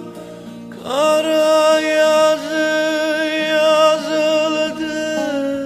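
Turkish song: a singer holds long, wavering notes, sliding up into a new note about a second in, over instrumental accompaniment.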